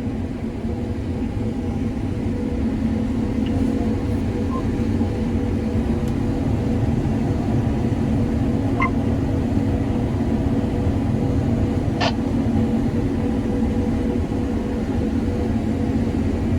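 Combine harvester running steadily while harvesting soybeans, a constant drone of engine and threshing machinery with a steady hum, and a couple of brief ticks around the middle.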